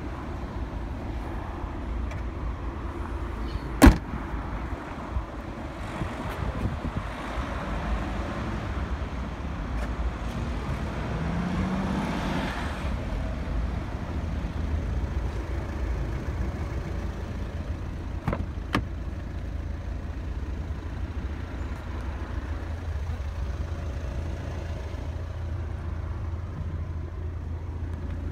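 Steady rumble of road traffic, with a vehicle swelling past through the middle. A single sharp click comes about four seconds in, and a few lighter clicks follow later.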